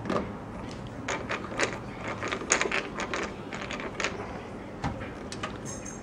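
Screwdriver turning a mounting screw into a hard drive through a PC case's steel drive cage: a run of irregular sharp clicks and ticks, some in quick clusters.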